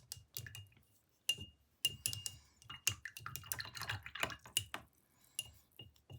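Light clicks and clinks of a paintbrush tapping against a hard paint container, with a stretch of swishing about halfway through.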